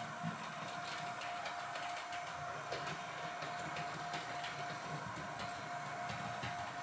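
Digitally controlled H0 scale model train running on the layout: a steady motor whine with a hiss and scattered light clicks from the wheels on the track.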